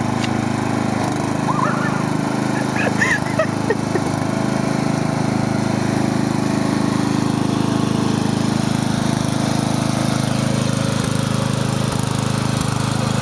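Riding lawn mower engine running steadily at a constant speed. A few brief high-pitched calls sound over it about two to four seconds in.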